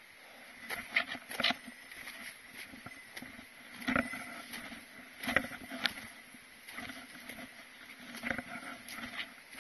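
A hiker's footsteps on a mountain trail during the descent: uneven steps in short clusters with pauses between.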